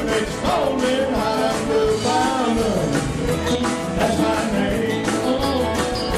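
Live band playing an upbeat country-rock song: a man sings lead over electric guitars, bass, keyboard and a steady drum beat.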